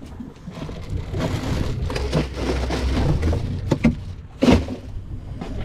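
Ice crunching and a plastic bag of ice rustling in a cooler as a fish is packed in, with one sharp knock about four and a half seconds in.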